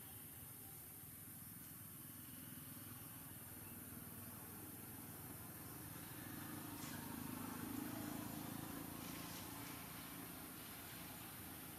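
Faint low rumble of a distant motor vehicle passing, swelling about six seconds in and fading again, with a few light clicks.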